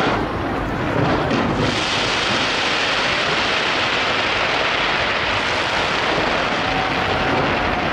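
A dense fireworks barrage: continuous crackling from many bursting shells and sparkling effects, merging into a rain-like wash of sound. It grows denser and brighter about two seconds in.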